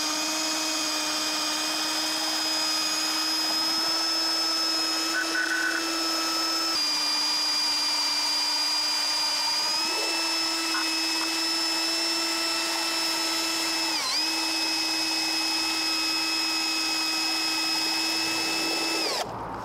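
Power drill spinning a 3D-printed centrifugal water pump at about 2000 RPM, a steady motor whine. The pitch shifts a little a few times, dips briefly once, and falls away near the end as the drill slows.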